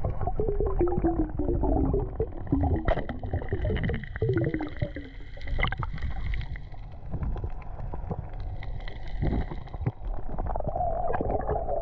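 Underwater sound through a camera's waterproof housing on a spearfishing dive: a steady low rumble with gurgling water, and a few sharp clicks.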